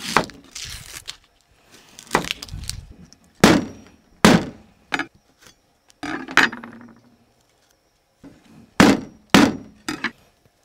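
Kitchen utensils being handled and set down during food prep: about eight separate sharp knocks and clinks at uneven gaps, a few ringing briefly.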